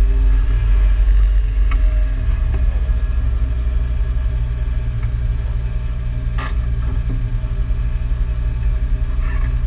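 Peugeot 106 rally car's engine idling steadily, heard from inside the cabin as a loud low rumble, with a single short click about two-thirds of the way through.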